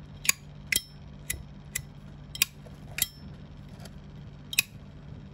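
Zippo lighter being handled: about seven sharp metallic clicks spaced irregularly, typical of the hinged lid flicking open and snapping shut.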